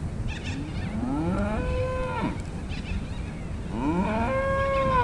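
Beef cattle mooing: two long moos, each rising in pitch and then held, the second one near the end.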